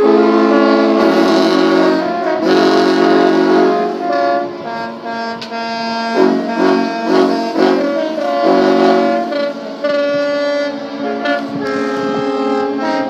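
Many yacht horns blowing together as the signal closing the boat show: a loud, dissonant chord of overlapping horn tones at different pitches. It starts suddenly, horns drop out and join in, and some give short repeated blasts partway through.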